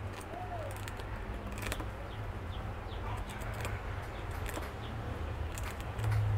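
Syrian hamster nibbling a piece of dry, crisp bread: irregular small crunching clicks from its teeth on the crust, over a steady low hum.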